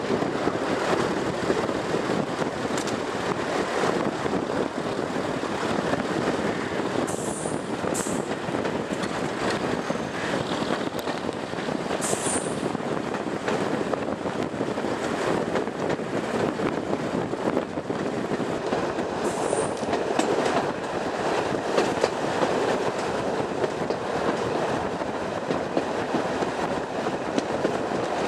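Class 108 diesel multiple unit running along the line, heard from an open carriage window: a steady rush of wheel and track noise. Short high-pitched wheel squeals come through four times, in the first half and about two-thirds of the way in.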